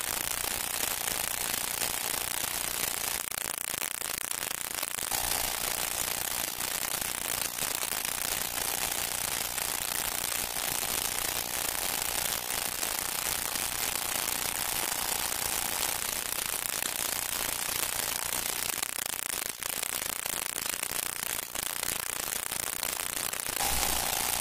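Steady hiss and dense crackle of a worn 1928 film soundtrack. A faint held tone sits under it from about five seconds in until about sixteen seconds, and again near the end.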